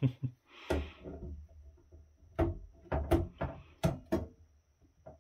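Sharp taps and clicks, about nine in irregular succession and most of them between two and four and a half seconds in: diagonal cutters used as a hammer, knocking a heatsink's spring-loaded plastic push pins through a circuit board.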